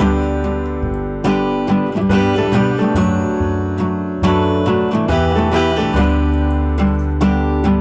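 Background music: strummed acoustic guitar chords with a steady beat.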